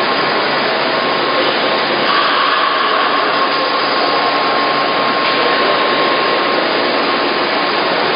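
Steady whirring noise of a milk processing line's machinery running, the electric motors and centrifugal pumps of the line, with a faint steady whine running through it.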